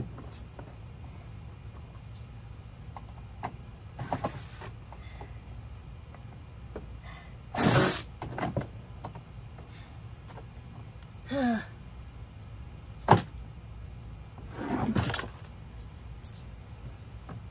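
Cordless drill-driver whirring in several short bursts as it backs screws out of the plastic body of a ride-on toy car, the motor's pitch swinging up and down on some bursts. There is one sharp click between them.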